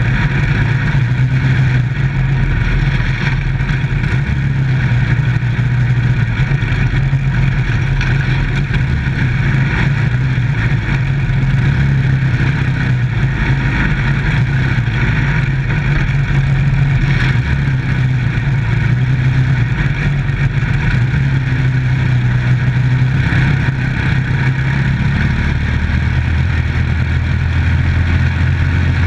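Dirt-track micro stock race car's engine running hard and steady as the car laps the track, heard loud and close from inside the cockpit. About four seconds before the end the engine note drops lower.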